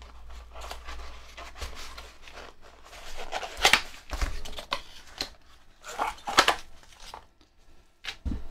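Cardboard box being opened by hand, the card rustling and crinkling, with two louder sharp crackles and a dull knock near the end.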